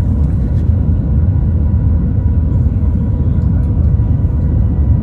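Shanghai Transrapid maglev train heard from inside the cabin while travelling at high speed: a steady low rumble with a faint steady whine above it.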